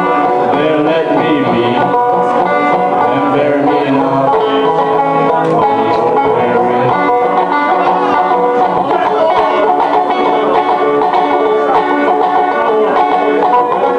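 Two banjos playing together in an instrumental passage: a steady stream of plucked, ringing notes.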